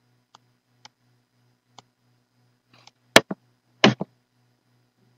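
Computer mouse clicks: a few faint ones, then two louder double clicks about three and four seconds in, over a faint, evenly pulsing low hum.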